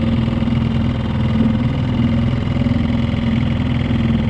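Mercury 3.5 hp outboard motor running steadily, pushing a small inflatable boat along, a continuous even drone. The motor is still in its break-in period.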